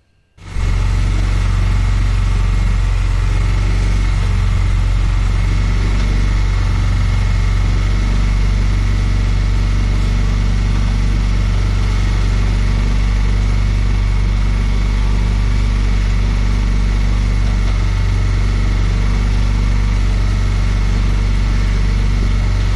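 Small motorboat's engine running steadily under way, a loud, even low drone with the rush of water and air over it; it cuts in abruptly just after the start.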